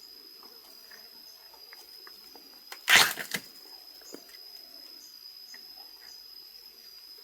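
A steady high-pitched insect drone, unbroken throughout, with one loud brief rustle or knock about three seconds in.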